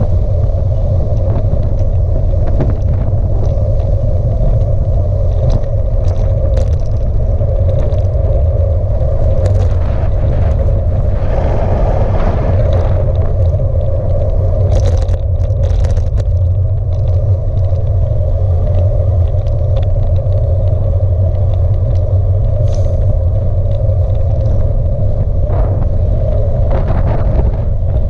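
Wind buffeting the microphone of a bike-mounted camera while a bicycle rides along a tarmac lane. The result is a loud, steady rumble, with tyre noise from the road surface and scattered clicks and rattles.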